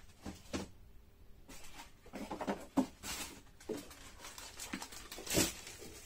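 Small parts and tools being handled during car horn assembly: scattered clicks, taps and rustles, with one louder knock near the end.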